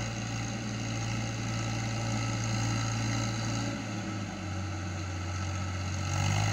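Eicher 5660 tractor's three-cylinder diesel engine running steadily under load as it pulls through deep mud, with a brief dip about two-thirds of the way through and growing louder near the end.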